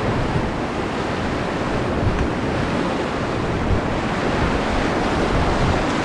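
Rushing white water of a river rapid, mixed with wind buffeting the microphone: a steady, dense noise with no breaks.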